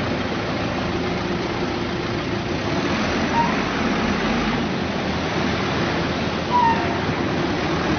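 Steady outdoor background noise of vehicles and people at a busy curbside, with two brief faint high-pitched sounds about three and six and a half seconds in.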